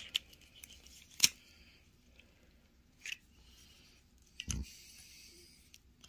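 Wire cutters clicking and cracking on a plastic fluorescent-tube socket as it is cut and pried open: a few separate sharp clicks, the loudest about a second in, and a duller knock about four and a half seconds in.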